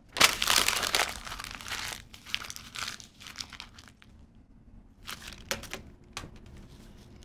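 Sheet of paper being crumpled up by hand: a dense crackle that is loudest in the first two seconds, fading into softer crinkles, with a few more brief crinkles about five seconds in.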